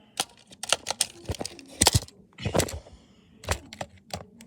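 A string of irregular clicks and knocks from a smoke detector being handled while its batteries are fitted.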